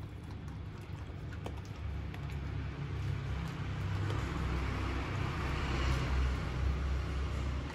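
A passing vehicle's rumble and road noise swell to a peak about six seconds in, then ease. Under it, dogs crunch dry kibble off a tiled floor, heard as a few small clicks.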